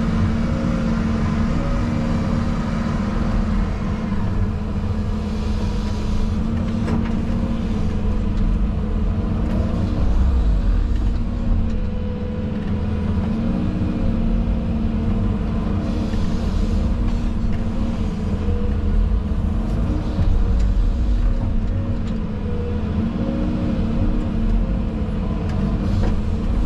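Excavator's diesel engine running steadily under working load, its note wavering slightly, with a few short knocks and rattles.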